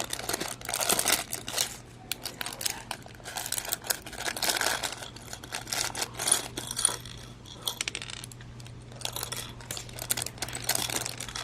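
Small plastic Lego minifigure pieces clattering and clicking as they are tipped out and handled, with some crinkling of the foil mystery bag. The clicks come thick and irregular throughout.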